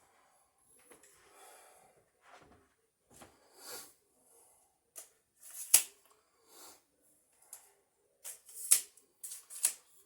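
Handling noise from a tripod stand as its telescoping legs are pulled out: scattered rustling and a few sharp clicks, the loudest about six seconds in and a quick cluster near the end.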